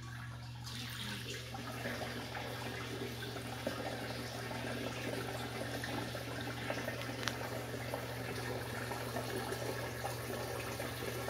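Homemade vortex fountain running: water churning and swirling in its clear cylinder as a steady rushing, over a steady low hum. The water noise gets louder about a second in.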